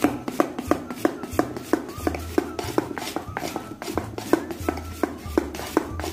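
Gram-flour khaman batter being beaten in a metal bowl: regular strokes, about three a second, each giving a sharp tap with a short metallic ring from the bowl.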